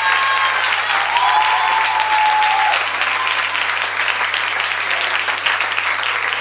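Audience applauding, with a few long held cheers over the clapping in the first half.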